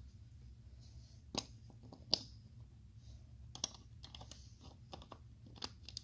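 Plastic LEGO bricks being handled and pressed onto a build: a scattering of sharp clicks and clacks, the loudest about two seconds in.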